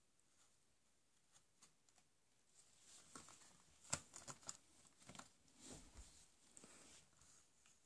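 A lop rabbit gnawing and nibbling at the end of a cardboard Toblerone box: faint, irregular scratchy clicks of teeth on cardboard, starting about three seconds in.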